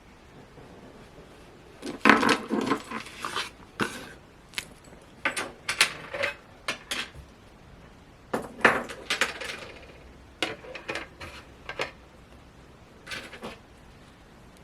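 Small hard pieces of a Funko Pocket Pop vinyl keychain clicking and clinking as it is handled, in several short bursts of sharp taps separated by pauses.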